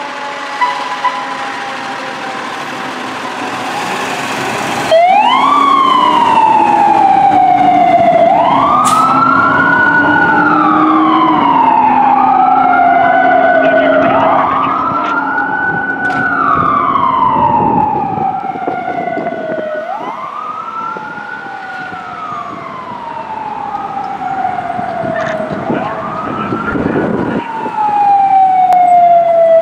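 Fire apparatus siren wailing over a diesel engine. After a few seconds of steadier engine noise, the siren comes on suddenly about five seconds in. It then sweeps up and down repeatedly, each sweep rising quickly and falling more slowly, about every three to four seconds.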